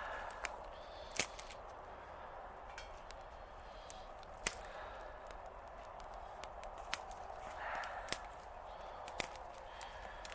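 Small wood fire burning in a twig-fed stick stove: a steady hiss with scattered sharp crackles and pops.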